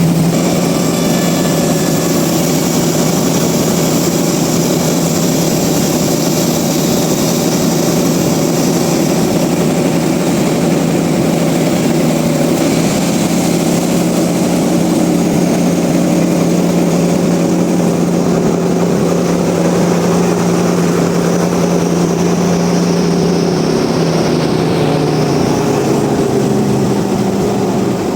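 Sawmill machinery running steadily: a loud, even machine drone with a strong low hum, easing slightly near the end.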